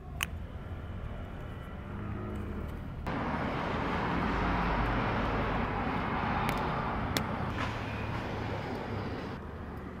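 Steady outdoor traffic noise that steps up about three seconds in and drops back near the end, with a few sharp small clicks as a plastic 35 mm film canister is handled and its cap pressed on.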